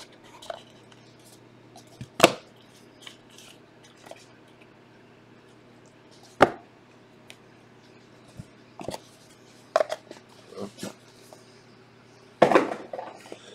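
Cardboard trading-card box being opened and handled on a table: scattered knocks and scrapes of box and lid, the sharpest about two and six seconds in, with a denser cluster of handling noise near the end.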